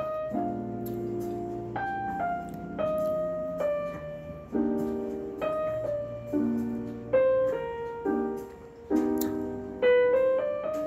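Background piano music: chords and melody notes struck about once a second, each fading before the next.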